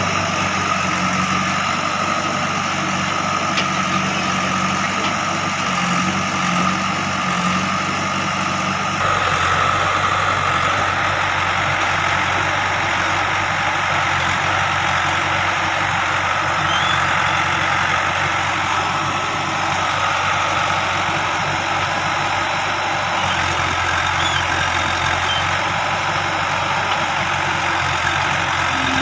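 JCB 3DX backhoe loader's diesel engine running steadily. Its sound shifts suddenly about nine seconds in and again later on.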